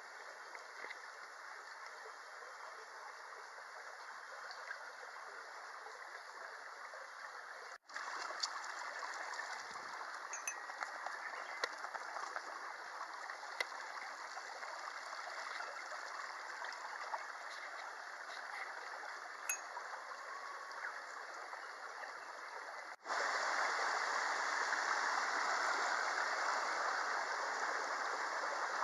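Mountain stream running over rocks, a steady rush of water. It jumps abruptly louder twice, about 8 s and 23 s in, at cuts in the recording.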